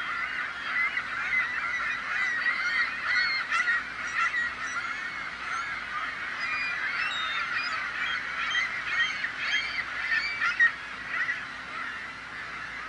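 A dense flock of gulls calling over one another: many short, harsh, honking calls overlapping without a break, one louder call standing out about ten seconds in.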